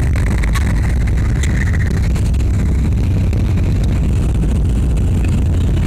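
Jet airliner on the runway heard from inside the cabin: a loud, steady low rumble of engines and rolling wheels, with a few light rattles.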